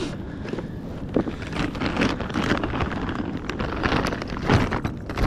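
Hands rummaging in a fabric bag and handling a clear plastic bag: irregular rustling and crinkling, over wind noise on the microphone.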